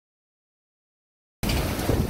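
Dead silence, then about one and a half seconds in the sound cuts in abruptly on the loud, steady rush of Hurricane Dorian's wind buffeting the microphone.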